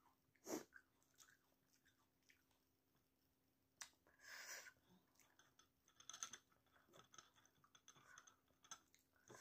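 Quiet chewing of kwek kwek, battered deep-fried quail eggs, with scattered light clicks, a sharper click about half a second in and a short rustling scrape about four seconds in.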